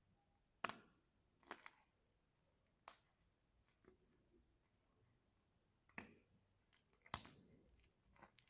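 Scattered sharp clicks and taps, the kind made by objects handled close to a microphone for ASMR, with about five louder ones spread irregularly among fainter ticks.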